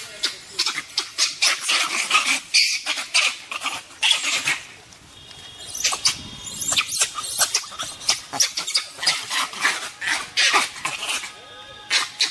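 A rapid, irregular series of short, sharp, high-pitched animal cries, with a brief pause about five seconds in.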